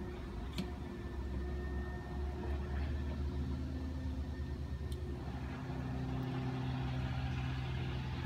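An engine running steadily with a low hum, with two light clicks.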